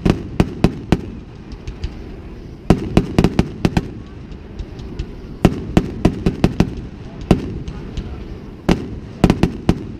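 Aerial fireworks bursting: clusters of sharp bangs and crackles, several in quick succession, coming every couple of seconds.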